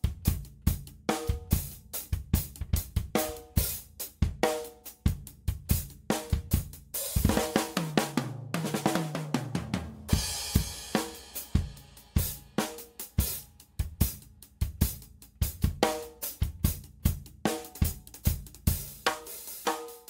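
Tama Starclassic birch drum kit played in a steady groove of kick, snare and cymbals. About seven seconds in comes a fill down the toms, falling in pitch, which ends on a cymbal crash about ten seconds in before the groove picks up again.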